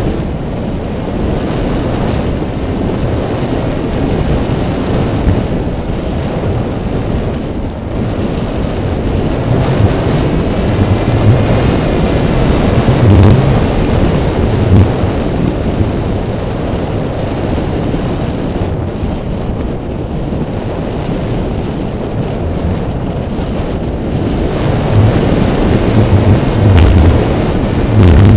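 Wind buffeting a flying drone's onboard microphone: a loud, steady low rush with irregular low thumps as gusts hit.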